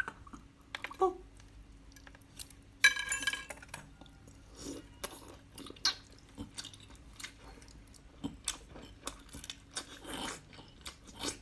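A person biting and chewing cooked octopus, close to the microphone: irregular small clicks and smacks from the mouth, with a louder bite about three seconds in.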